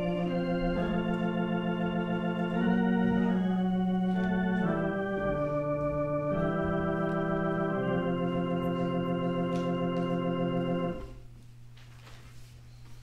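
Organ playing slow, sustained chords that change every second or two, stopping about eleven seconds in; a low steady hum is left afterwards.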